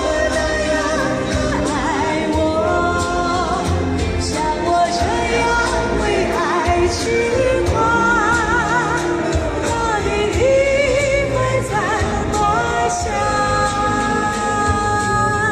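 A woman singing a Chinese pop ballad into a microphone, amplified through a portable PA speaker over a backing track with a steady beat; her held notes carry a wide vibrato.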